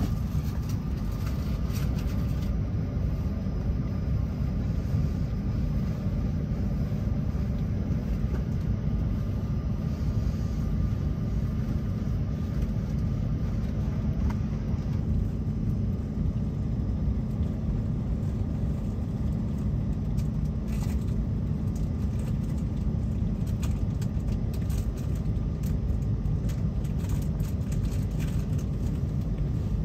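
Renfe Class S120 high-speed train running, a steady low rumble of running noise heard from inside the coach.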